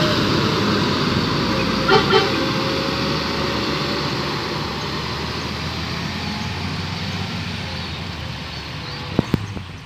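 A bus engine running loud and slowly fading as the bus drives away, with two short horn toots about two seconds in. Two sharp knocks near the end.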